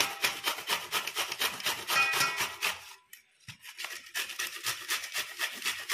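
Peeled raw mango being grated on a stainless steel box grater: quick, evenly repeated rasping strokes, with a short pause about three seconds in before the strokes resume.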